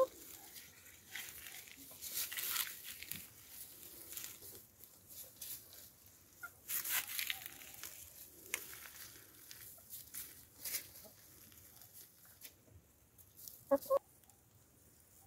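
Domestic hens foraging: a short cluck right at the start and a couple of quick clucks near the end, with soft intermittent rustling and scratching in dry straw between them.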